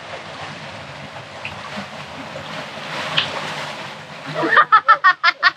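Wind on the microphone and sea water washing and splashing along the hull, then, about four and a half seconds in, a quick run of about seven short, loud vocal calls.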